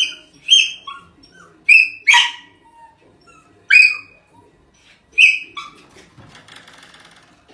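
Small dog yipping: about seven sharp, high-pitched barks, several of them in quick pairs.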